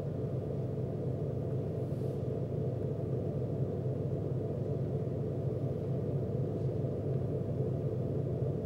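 A steady low rumble that holds unchanged, with no distinct events.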